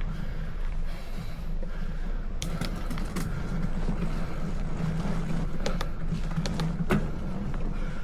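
Bicycle being ridden uphill: a steady low rumble of tyres and riding noise, with a few sharp clicks from the bike about a third of the way in and again after the middle.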